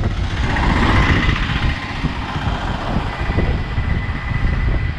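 Road traffic going by, including a motorcycle, swelling about a second in, over a heavy low rumble.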